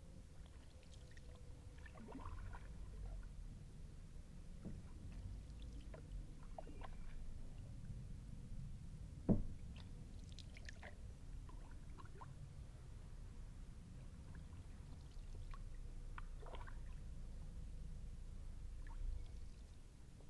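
Kayak paddle dipping into calm river water, with gentle splashes and drips running off the blade over a low rumble. One sharp knock about nine seconds in.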